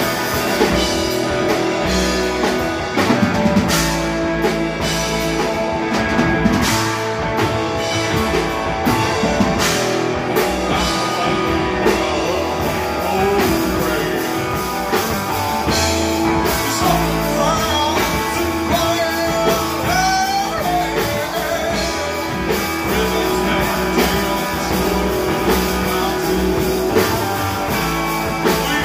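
Live rock band playing: distorted electric guitar through an amp and a full drum kit, with a man singing lead from about halfway through.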